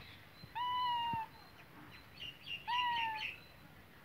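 Tabby cat meowing twice, each call short and level with a slight drop in pitch at the end. Short high chirps sound around the second meow.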